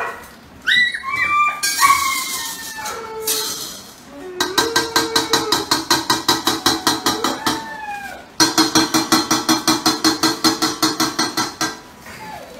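Puppies whimpering and yelping in short rising and falling cries, then a fast, very even pulsing sound carrying a steady tone, about five or six pulses a second, in two long runs with a brief break in between.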